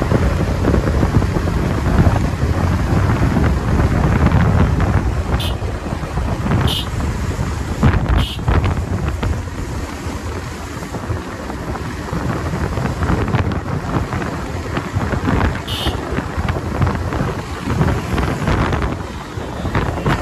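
Wind buffeting the microphone on a Bajaj Pulsar 220 motorcycle at highway speed, a loud steady rumble with the single-cylinder engine and tyre noise underneath.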